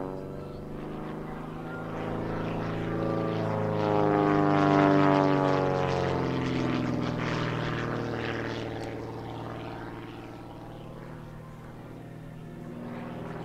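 Super Chipmunk aerobatic plane's piston engine and propeller droning overhead, the engine note bending up and down as it manoeuvres. It swells to its loudest about four to five seconds in, then fades.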